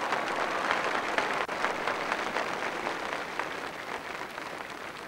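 A large crowd applauding, the clapping dying down toward the end.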